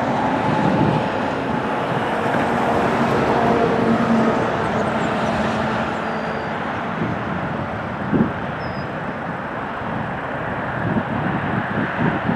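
Jet airliner engines at takeoff power, a steady rumbling roar with a faint hum of engine tones that slowly fades as the aircraft climbs away.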